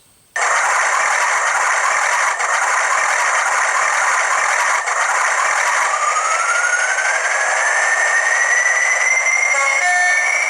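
A model Class 40 diesel locomotive's TTS sound decoder plays English Electric engine and turbocharger sound through a small speaker, thin and without bass. A whistle rises steadily in pitch from about halfway through as the engine notches up.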